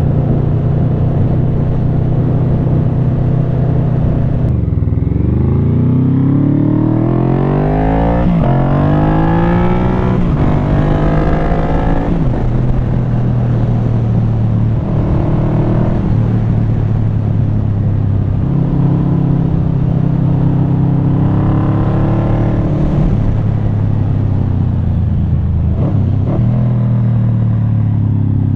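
1995 Yamaha Vmax 1200's V4 engine through a Delkevic carbon slip-on exhaust, heard while riding. A few seconds in, the revs drop and then climb steeply twice, with a shift between the climbs, before settling into a steadier cruise with small rises and falls in pitch.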